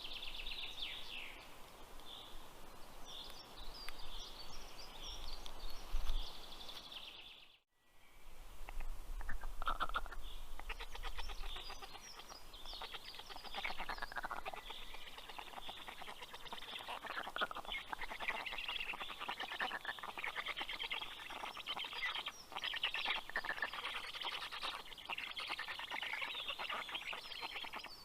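Black stork chicks calling at the nest, a dense run of rapid, raspy calls from about nine seconds on, with smaller birds chirping higher up before that. The sound cuts out briefly about eight seconds in.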